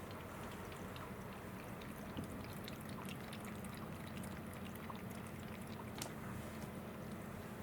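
A kitten lapping water, with many small, quick, wet clicks at an uneven pace that thin out near the end. A steady low hum runs underneath.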